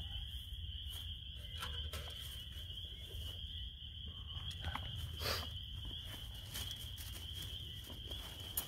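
A steady, high-pitched chorus of calling frogs that does not let up. Over it come scattered light clicks and a rustle, the loudest about five seconds in.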